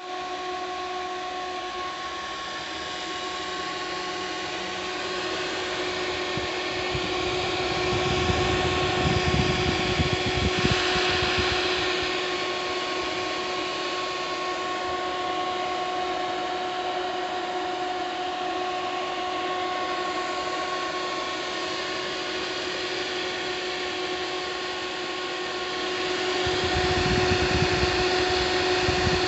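Buell XB12Scg's electric engine-cooling fan running with a steady whine over a whooshing hiss, which the owner finds noisy and long-running. A louder low rushing comes in twice, about eight seconds in and again near the end.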